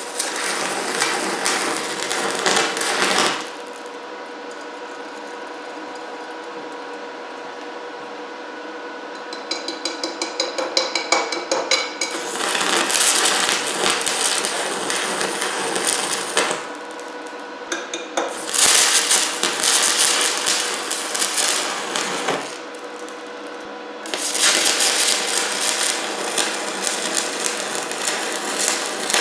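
DC stick welder arc crackling and hissing as a 4043 aluminum rod burns into a cast aluminum Briggs & Stratton engine block, in four runs of a few seconds each, with a rapid string of short crackles around ten seconds in. A quieter steady hum fills the gaps between runs.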